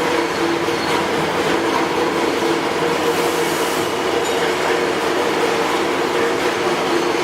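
Water-cooled spindle motor running steadily: a constant whine with a rough, noisy hum underneath.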